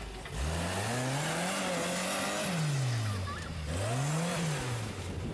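Rock-crawler buggy's engine revving up and down as it climbs over boulders: revs rise shortly after the start and hold for about a second before dropping. They rise again about four seconds in and fall back near the end.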